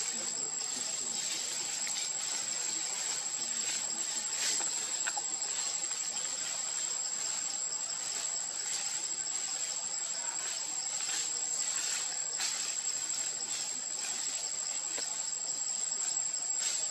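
Steady high-pitched insect chorus: an unbroken two-note buzz in the forest canopy, with scattered faint ticks.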